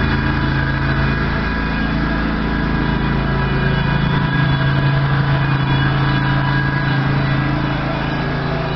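Backhoe engine running steadily at a constant speed.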